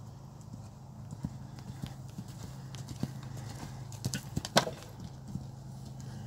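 Hoofbeats of a horse cantering on a sand arena, with a single sharp knock about four and a half seconds in.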